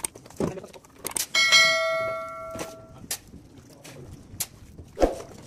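A single bright notification-bell chime rings about a second in and fades away over roughly two seconds, the sound effect of an on-screen subscribe-button animation. Around it come several short splashes and knocks of a bucket scooping muddy water.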